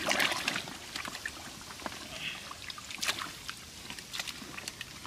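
Hands sloshing and splashing in shallow muddy ditch water while groping in a mud hole for fish, with many small wet clicks and trickles, loudest around the start.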